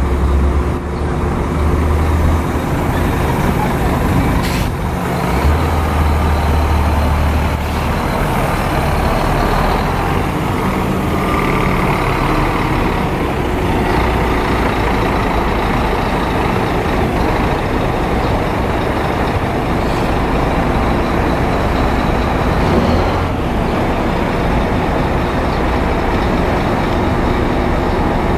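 Scania diesel engine of a Marcopolo Paradiso 1800 DD G6 double-decker coach running as the coach moves slowly off. The low engine rumble is steady, heavier in the first several seconds.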